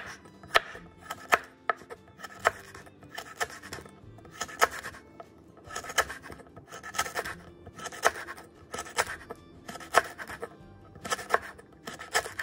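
A santoku knife slicing lemongrass stalks into thin rounds on a wooden cutting board: a crisp crunch and tap of the blade on the board with each cut, about two cuts a second with short pauses.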